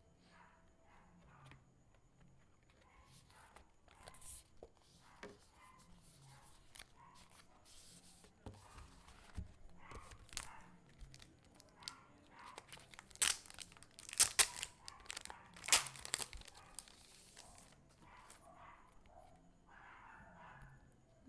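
Packaging being torn open and crinkled by hand: a run of scattered tearing and crinkling noises, loudest and sharpest about 13 to 16 seconds in.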